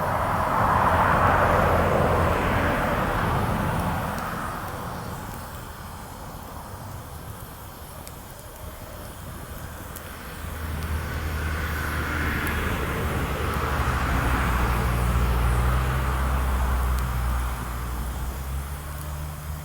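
Engine noise from passing traffic, swelling and fading twice, the second pass longer and carrying a steady low engine hum.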